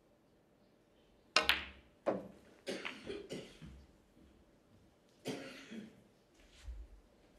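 Spectators coughing: a run of four or five coughs starting about a second in, then one more cough past the middle and a fainter one near the end.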